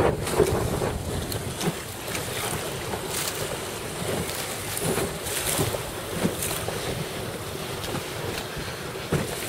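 Wind buffeting the microphone over a choppy sea, with water splashing and washing in short irregular bursts.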